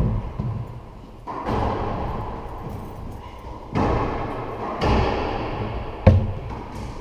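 A racquetball being hit and striking the court walls: four hard smacks, about a second in, near four seconds, near five seconds and the sharpest about six seconds in, each ringing on in the echo of the enclosed court.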